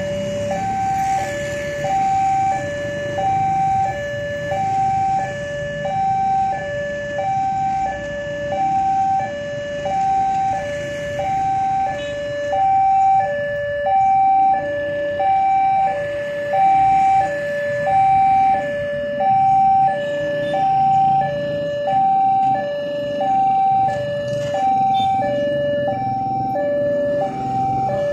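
Railroad level-crossing electronic warning alarm sounding a steady two-tone high-low chime, about one high-low cycle a second. Motorcycle engines run underneath it.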